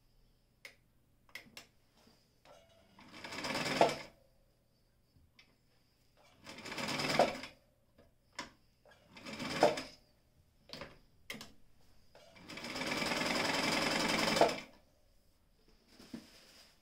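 Brother Window-Matic semi-industrial sewing machine stitching through layered material in four short runs. Each run speeds up and then stops, and the last run, near the end, is the longest. Small clicks of handling come between the runs.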